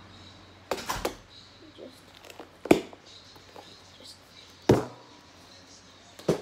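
Sneakers being handled and knocked against a glass tabletop: about five short, sharp knocks spread out, the loudest two near the middle.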